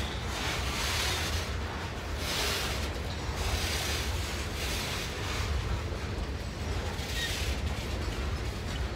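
Freight train cars rolling past: a steady low rumble with a hiss that swells and fades every second or two.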